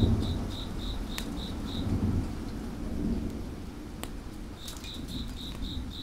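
Thunder rumbling and fading away over steady rain, with a cricket chirping about three times a second, pausing in the middle and starting again near the end. A couple of sharp pops from a crackling wood fire.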